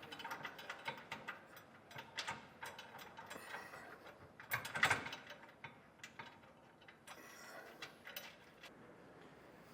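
Hand ratchet clicking in quick runs as hex bolts are threaded into a truck frame rail, with a louder cluster of metal clicks and knocks about five seconds in, fading out for the last second or so.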